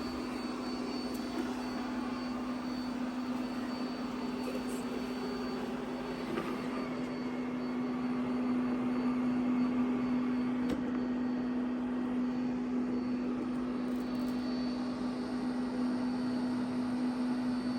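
Bissell SpinWave robot vacuum running in vacuum mode: a steady, quiet motor hum with a faint high whine above it, growing a little louder about halfway through.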